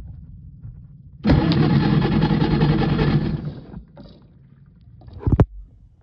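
A motor runs for about two and a half seconds, starting and stopping abruptly, with a few sharp knocks before and after it.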